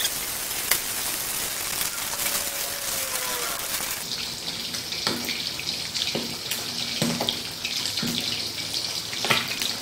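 Water at a rolling boil in a small saucepan on a gas stove, bubbling with a steady rush, as chillies, tomatoes, shallots and garlic are parboiled until wilted.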